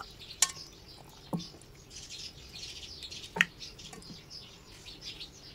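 Small birds chirping faintly and continually, with a few sharp clicks and knocks from raw chicken pieces being handled in a stainless steel pot. The two loudest clicks come about half a second and about three and a half seconds in.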